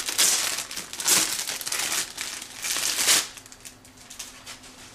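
Thin clear plastic packaging crinkling in bursts as hands pull it off a small cardboard box. It dies down to a faint rustle after about three seconds.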